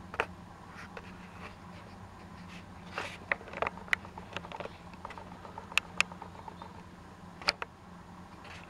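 Scattered small clicks and taps, a cluster of them around the middle, over a faint steady hum.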